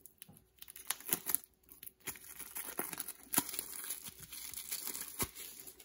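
Thin plastic shrink-wrap being picked at and torn off a deck of game cards: a few scattered crackles, then from about two seconds in a steady crinkling with sharp crackles that stops near the end.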